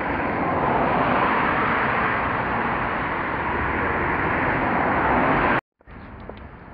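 Road traffic: a steady rush of vehicles on the street. It cuts off suddenly near the end, leaving a much quieter background with a few faint ticks.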